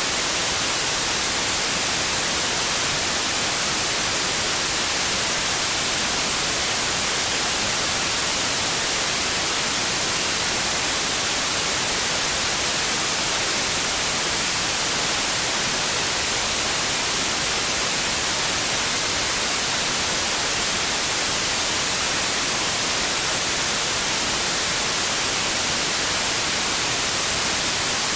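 Steady white noise: an even, unchanging hiss across all pitches, brightest in the highs.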